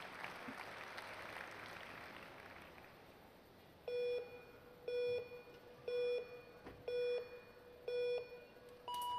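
Track-cycling start countdown timer: five short low beeps a second apart, then a longer, higher beep near the end that signals the start and releases the start gates.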